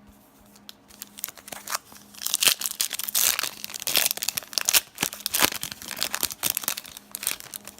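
A trading-card pack wrapper being torn open and crinkled in the hands: a dense run of sharp crackles that starts about a second in and is busiest through the middle.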